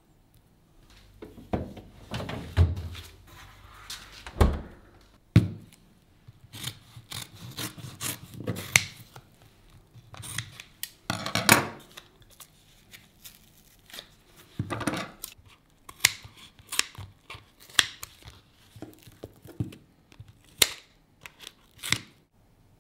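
A paper cream carton handled on a wooden tabletop: low thumps and a sharp knock, then crinkling and rustling of the carton. Near the end, scissors snip through the carton about once a second, cutting it open.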